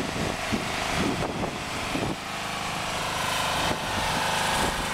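Fire truck engine running steadily at a constant speed, with a few light knocks over it.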